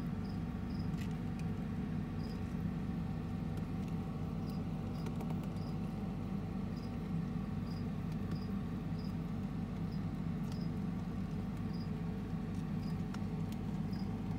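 A steady low hum, with faint short high chirps repeating irregularly about once a second and a few faint clicks.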